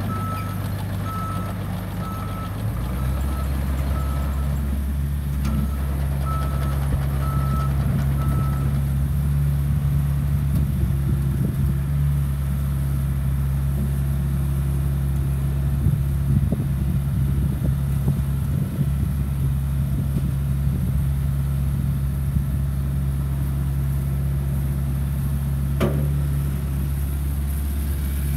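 Doosan DX55 midi excavator's diesel engine running, its note stepping up about three seconds in as the hydraulics are worked, with the machine's warning alarm beeping about twice a second for the first eight seconds or so. A single brief knock sounds near the end.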